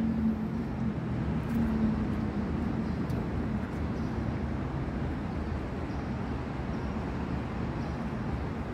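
Steady background noise of a construction site, an even rumble and hiss with a faint low hum in the first few seconds.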